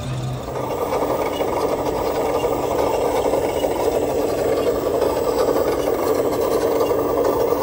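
A radio-controlled model's small motor running steadily with a buzzing rattle, growing louder about a second in and then holding.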